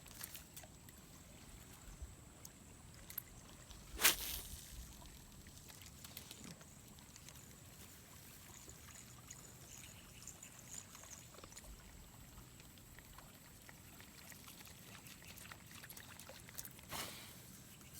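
Faint trickling water, with one sharp splash or knock about four seconds in and a smaller one near the end.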